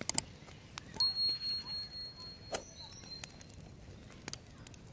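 A sharp metallic clink about a second in, then a single high ringing tone that fades in pulses over about two and a half seconds, like struck metal cookware, with a few lighter clicks around it.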